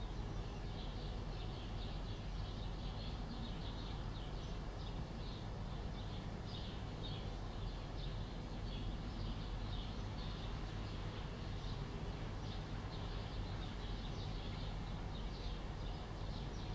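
Young chicks peeping: short, high cheeps coming two or three a second, over a steady low hum.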